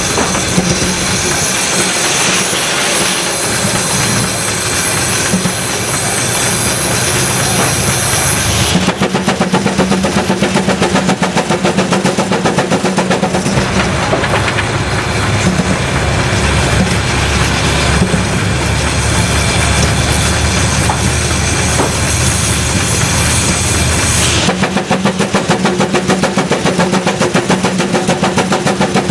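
Case steam traction engine's exhaust chuffing from the stack in rapid, even beats while it drives a belted sawmill. From about nine seconds in to about twenty-four seconds the sound turns deeper and heavier, then lightens again.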